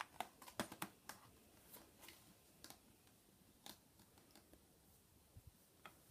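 Faint clicks and taps of Blu-ray cases being handled and set down: a quick cluster in the first second, then a few scattered ones.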